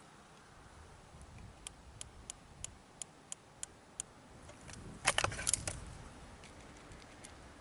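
Riflescope windage turret being turned click by click, about eight light, evenly spaced clicks around three a second, adjusting the point of impact sideways. About five seconds in there is a louder quick rattle of several clicks.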